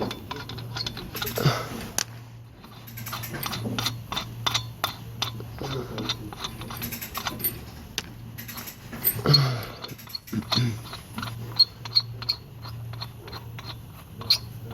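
Tow truck winch pulling a car up onto the platform: its motor hums steadily, on and off, under many sharp clicks and metallic knocks, with a few louder knocks.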